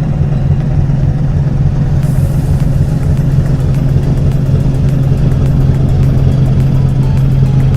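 An engine running steadily at constant speed, a loud low hum with an even pulsing beat underneath.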